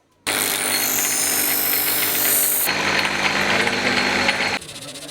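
A power tool running loudly on metal, cutting abruptly about halfway to a different machine sound, then dropping suddenly to a quieter one near the end.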